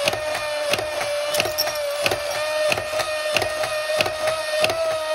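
Minions coin-bank toy's small electric motor overdriven at 32 volts, running with a steady whine while its mechanism clacks at an even pace, about three times every two seconds.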